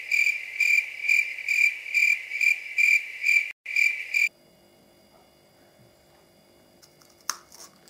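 Cricket chirping, evenly pulsed at about two chirps a second, that starts abruptly and cuts off suddenly about four seconds in: an edited-in 'awkward silence' sound effect. After it, only faint room tone and a short click near the end.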